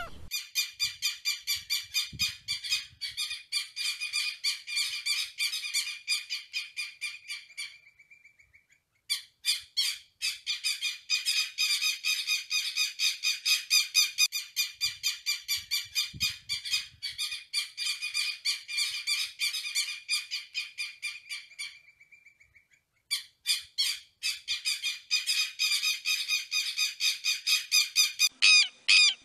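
Southern lapwing calling: rapid, evenly repeated calls at about four a second, in three long runs with two short pauses between them.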